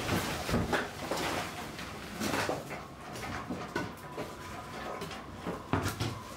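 Demolition handling noise: a large sheet of old plastic lining being pulled and pried off a wooden wall and ceiling with a pry bar, with irregular crackling, scraping and knocks. A thin, steady squeak runs through the second half.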